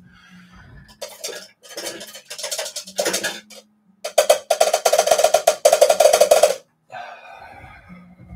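Paintbrush being washed, rattled and knocked against its rinse container: a few short clattering runs, then a fast, loud rattle in the middle, then fainter swishing near the end.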